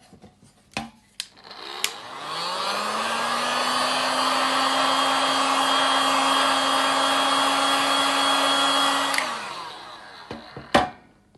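Heat gun switched on, its motor spinning up to a steady blowing whirr for about seven seconds as it dries acrylic paint, then switched off and winding down. Small clicks and knocks come before it starts, and a sharp click comes near the end.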